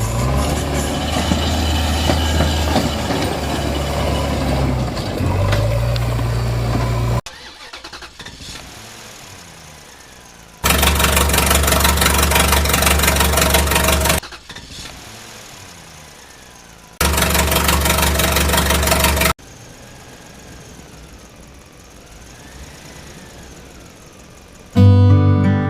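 Engine running in loud stretches that start and cut off abruptly, the first about seven seconds long, then two shorter ones, with a quieter sound in the gaps. Strummed acoustic guitar music starts near the end.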